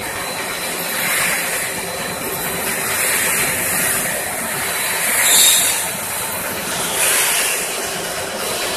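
Steady hissing noise of a snack-food production line's machinery running, swelling and easing every second or two.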